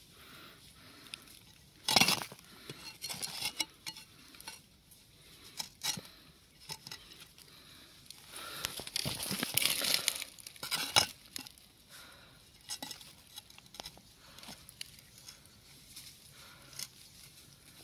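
Irregular clicks, taps and rustling, with a sharp knock about two seconds in and a longer stretch of rustling from about nine to eleven seconds.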